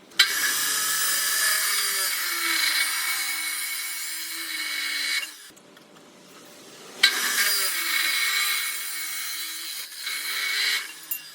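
HiKOKI FCC14ST 355 mm abrasive cut-off saw cutting through 50 mm square steel tube, twice: each cut starts suddenly, runs about four seconds with a harsh hissing grind, then drops away.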